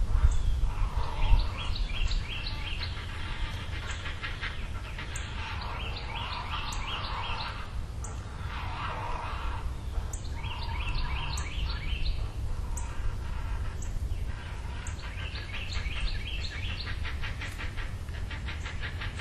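Several birds chirping and calling over one another in quick, repeated high notes, over a low rumble that is loudest in the first second or two.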